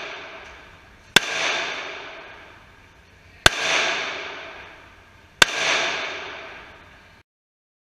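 Three shots from a Glock 27 .40 S&W subcompact pistol, about two seconds apart, each followed by a long echo off the walls of an indoor range. The sound cuts off suddenly near the end.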